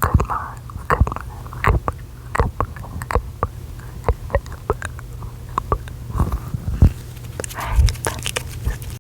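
Close-miked mouth clicks and wet mouth sounds, many sharp separate clicks at an uneven pace, with a couple of brief breathy whispers near the start and near the end, over a steady low hum.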